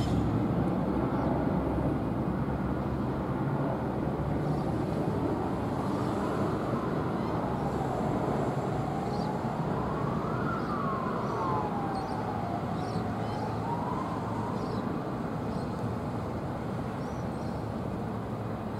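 A siren wailing, slowly rising and falling in pitch, over a steady low rumble of vehicle noise; the wail comes in about a third of the way in and fades out a little past the middle.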